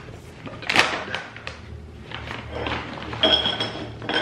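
A snack bag of yogurt-covered pretzels is torn open with a sharp rip about a second in, followed by crinkling of the bag. Near the end the pretzels are poured out and clatter onto a plate.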